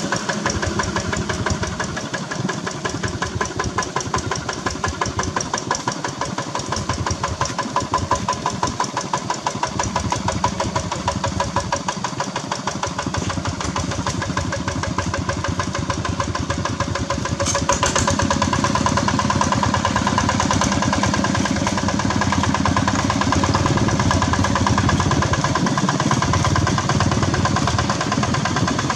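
Single-cylinder diesel engine of a two-wheel walking tractor running steadily with a rapid, even chug. A short sharp click comes about two-thirds in, after which the engine runs a little louder.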